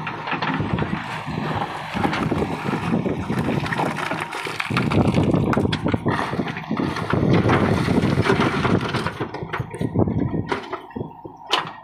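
JCB 3DX backhoe loader's diesel engine running under load as its bucket digs into and dumps broken stone into a truck body, rocks clattering and tumbling, loudest in the middle seconds.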